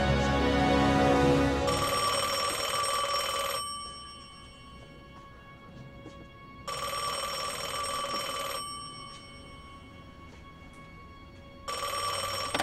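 Wall-mounted payphone ringing with an incoming call: three rings of about two seconds each, roughly five seconds apart. Music fades out just before the first ring.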